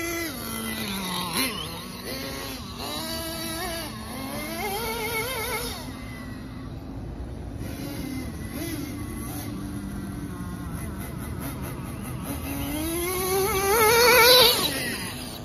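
Nitro RC truck's small glow-fuel engine, running on methanol and castor oil with no nitro, revving up and down as it is driven, its pitch wobbling. It rises to its loudest near the end as a truck passes close.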